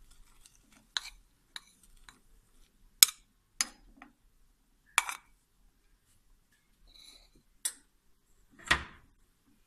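A spoon and bowl clinking and knocking against each other and the rim of a steel cooking pot while grated carrots are scraped out: a series of sharp clinks a second or two apart, the loudest about three seconds in, and a fuller knock near the end.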